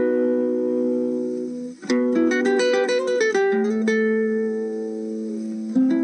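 Background music: a slow plucked guitar piece with chords left ringing and a quick run of short notes about two seconds in.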